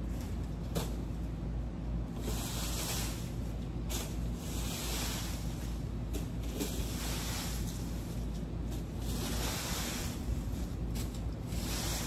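Leaf rake scraping and sweeping storm-downed leaves and twigs across bare dirt in repeated long strokes, about one every second or two, over a steady low hum.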